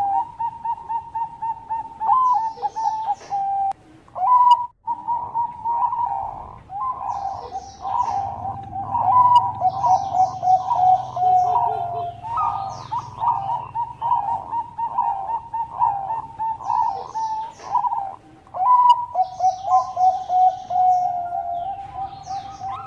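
Bangkok-type perkutut (zebra dove) cooing in long, fast runs of repeated notes, breaking off briefly about four and a half seconds in. Brief high chirps come in now and then over the cooing.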